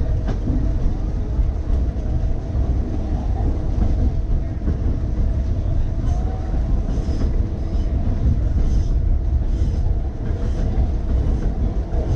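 Key System 187 electric railcar running along the track at speed: a steady rumble of steel wheels on rail and the car's running gear. From about halfway in, short clicks recur roughly once a second.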